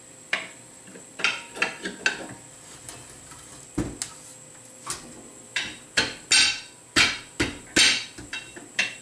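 Machined aluminum grinder plate knocking against an electric motor as it is test-fitted over the motor. A string of sharp knocks, scattered at first, then coming quicker and louder in the second half.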